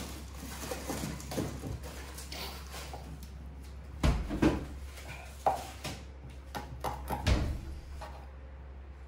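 Knife chopping through raw chicken on a cutting board: a few sharp knocks, a cluster about four seconds in and more about a second and three seconds later, with quieter handling sounds between.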